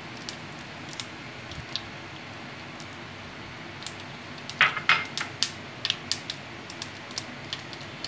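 Black mustard seeds starting to pop and crackle in hot oil in a pan: scattered sharp pops over a faint sizzle. The pops come more often from about four and a half seconds in, with a cluster of the loudest just after that. This is the sign that the oil is hot enough for the tempering.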